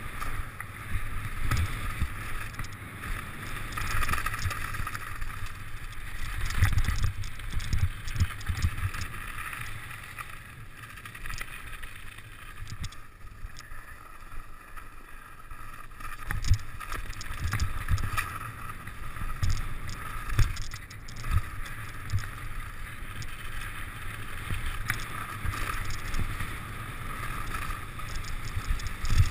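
Mountain bike rolling downhill over a snowy trail: steady tyre rumble with irregular knocks and rattles from the bumps, and wind on the microphone.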